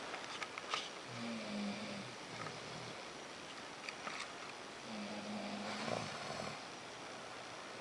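A sleeping person snoring: two drawn-out, low-pitched snores about four seconds apart, over a steady faint hiss.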